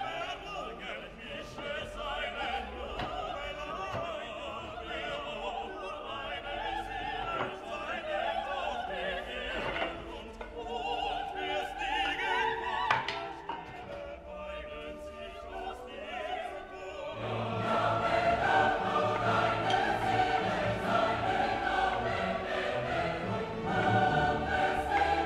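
Background classical music with operatic singing and orchestra; about two-thirds of the way through it swells, fuller and louder, with low bass notes added.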